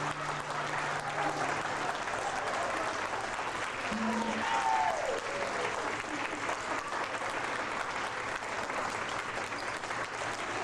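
Audience applauding steadily, with a voice calling out about four seconds in.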